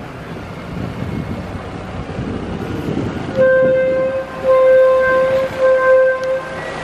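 Small passenger boat's horn sounding a steady note in several blasts for about three seconds, starting a little past the middle, over the low running of the boat's engine and wind noise.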